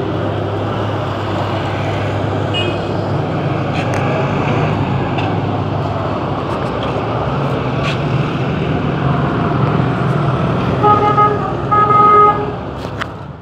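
Steady engine and road rumble of a moving city bus heard from inside, with two short honks of a vehicle horn near the end.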